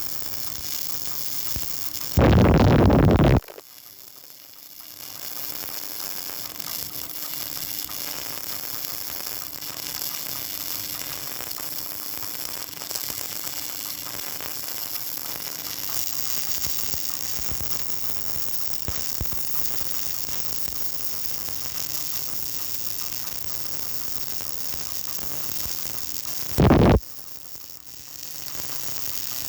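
Welding arc crackling and hissing steadily over a faint electrical hum during a vertical-position (3G) weld. Two short, much louder bursts of noise break in, one about two seconds in and one near the end.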